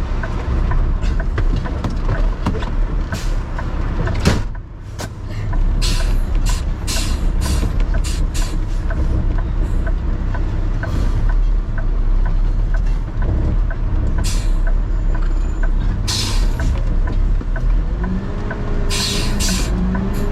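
Diesel engine of a garbage truck running, with an even ticking about twice a second and short bursts of air hiss. A loud knock comes about four seconds in, and a rising whine near the end.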